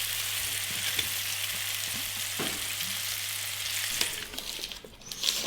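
Flour-coated cod tongues frying in oil in a frying pan: a steady sizzle that dies down about four seconds in, with a few clicks near the end.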